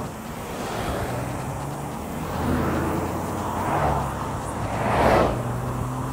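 Road traffic: cars passing one after another, each swelling and fading as a tyre-and-engine whoosh, the loudest about five seconds in. A steady low engine hum sits underneath.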